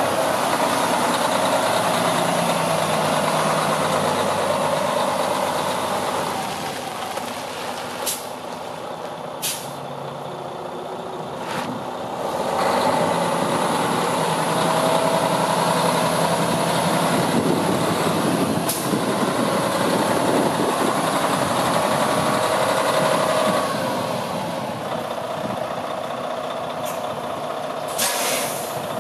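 Freightliner Cascadia 125 tractor's diesel engine idling steadily, with several short, sharp hisses of released air from the truck's air brake system.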